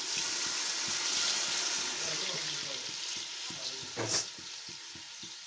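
Water poured into a pot of frying tomato and onion stew base, sizzling as it hits the hot oil and dying down over about three seconds. A single knock about four seconds in, then a fainter sizzle with small pops.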